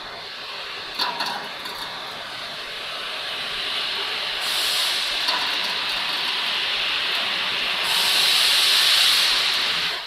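Stainless-steel bubble washing machine running while its automatic lifting system raises the conveyor belt frame: a steady hissing rush that grows louder, with a click about a second in and two louder surges near the middle and near the end.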